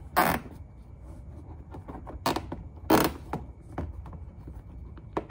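Plastic zip tie being pulled through its ratchet lock in short zips, once just after the start and again around two and three seconds in, fastening a plastic fender liner, with light plastic ticks in between.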